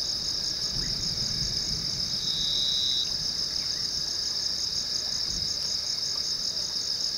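Dense, steady chorus of evening insects, shrill and finely pulsing. A second insect's steady trill, a little lower, joins it for under a second about two seconds in.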